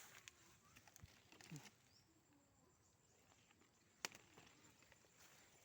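Near silence: faint outdoor ambience with a few light clicks, the sharpest about four seconds in.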